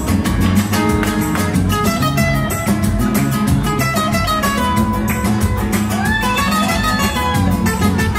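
Several acoustic cutaway guitars playing a fast gipsy rumba, with driving rhythmic strumming under a picked melody line.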